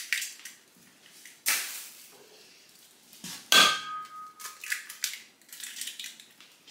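Eggs knocked against the rim of a stainless steel mixing bowl. The louder knock, about halfway through, sets the bowl ringing briefly, and lighter clicks of shell and metal follow.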